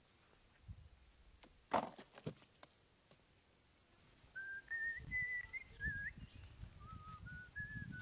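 The cardboard box trap's flap door snaps shut with one sharp slap, followed by a few lighter knocks. From about halfway, a person whistles a slow tune of held notes over rustling footsteps in dry grass.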